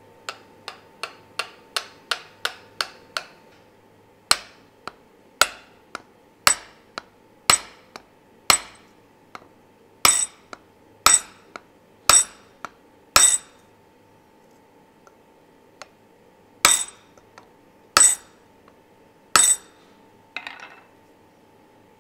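Forged steel ball-peen hammer head being driven down onto its wooden handle at the anvil: a run of sharp knocks with a metallic ring, quick at about three a second at first, then slowing to about one a second, with three louder strikes and a duller knock near the end.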